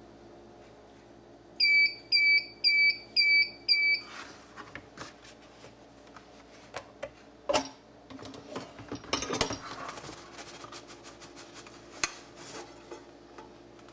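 Oster bread machine beeping five times, about two beeps a second, signalling that the baking cycle is done. Then the lid is opened and the metal bread pan is lifted out and turned over, with scattered clanks and knocks of metal.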